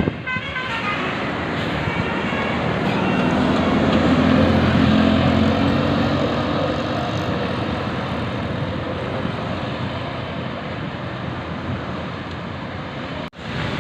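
A large bus's engine and road noise as it passes by, growing louder to about four or five seconds in and then fading. There is a brief break in the sound near the end.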